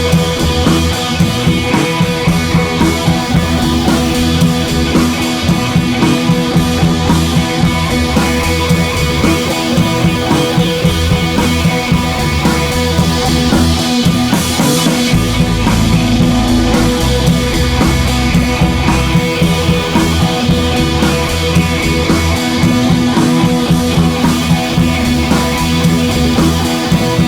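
Background music: rock-style music with guitar and drums and a steady beat.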